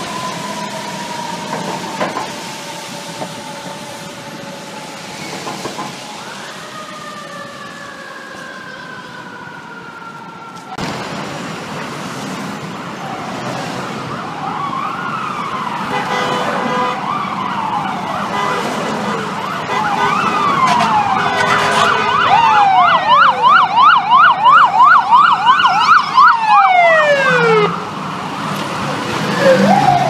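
Fire truck sirens in city traffic. A wailing siren slowly falls in pitch; then several sirens sweep up and down, building to a loud, rapid yelp as FDNY Engine 65 passes, before falling away in long downward sweeps near the end.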